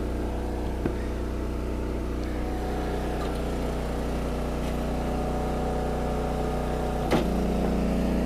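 Engine of an Eastonmade 22-28 hydraulic wood splitter running steadily, with one sharp knock about seven seconds in.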